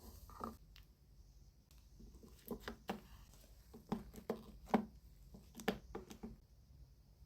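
A run of short, light clicks and taps, about a dozen over four seconds, like small hard objects being handled and set down on a work surface during resin crafting.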